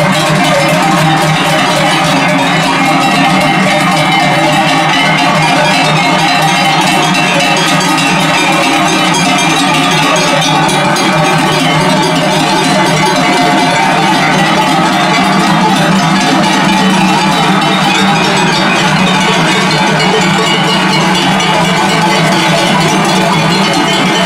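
Many cowbells on a herd of cattle ringing together in a continuous, dense clangour as the animals walk.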